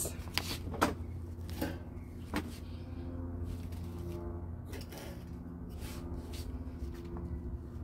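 Hands digging into garden soil and setting turnip seedlings: scattered rustles and scrapes with a few sharp taps in the first couple of seconds, over a low steady hum.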